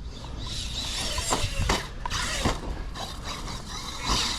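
Arrma Fireteam 6S RC car crashing and tumbling, a string of sharp knocks and clatters as the plastic body strikes the ground several times.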